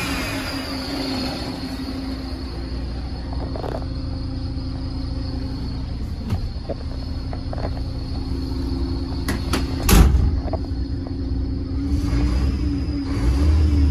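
Scania P360's five-cylinder diesel engine idling steadily with a low hum. A few light clicks and one sharper knock about ten seconds in.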